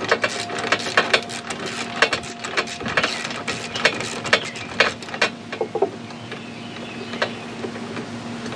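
Socket ratchet on a 7/16 inch socket and extension clicking in quick runs as a nut is backed off a bolt. The clicks come thick for about five seconds, then thin out to a few single ticks.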